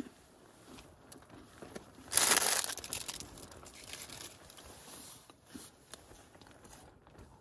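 Chewing a crisp wafer biscuit, with a loud, noisy crinkling rustle lasting under a second about two seconds in.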